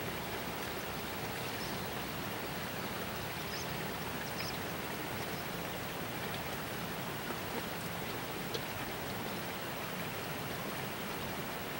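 Steady outdoor background hiss, even and unchanging, with a few faint high chirps scattered through it.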